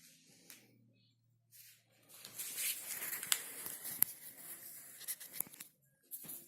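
Rustling and crinkling with several sharp clicks, starting about two seconds in and stopping shortly before the end: something such as packaging or plastic parts being handled.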